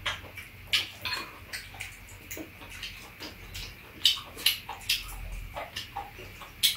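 Metal spoons clinking and scraping against ceramic rice bowls while eating, a string of irregular short clicks.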